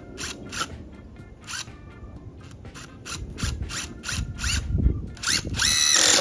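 Cordless drill driving a screw into a wooden block: a series of short trigger bursts, each with a brief rising whine, then a longer, louder run of the motor near the end that stops suddenly. Background music plays underneath.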